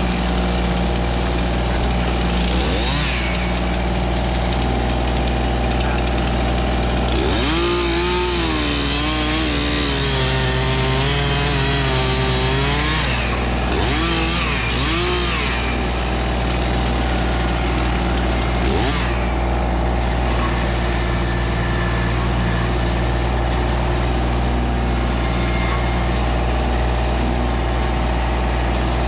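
A small engine runs steadily throughout. A chainsaw revs up and down over it in stretches, the longest a quarter to halfway through, its pitch wavering as it cuts.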